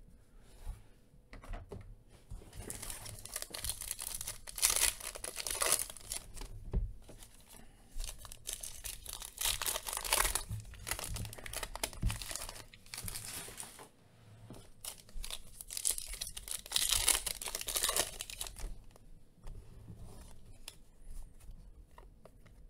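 Foil wrappers of Phoenix Football trading-card packs being torn open and crinkled, in three main bursts, with the cards handled and flicked through in between.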